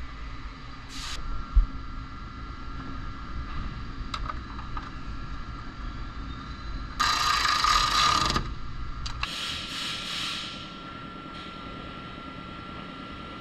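Body-shop work noises over a steady high hum: a sharp knock about one and a half seconds in, then two short bursts of hissing noise, the first loud, the second fainter.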